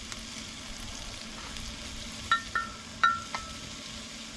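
Sliced beef tongue sizzling steadily in a cast-iron pan, with four light metallic clinks a little past halfway.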